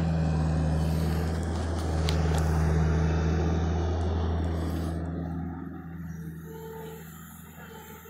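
John Deere excavator's diesel engine running with a steady low hum, with a couple of light clicks about two seconds in; over the last three seconds it drops off and grows much quieter.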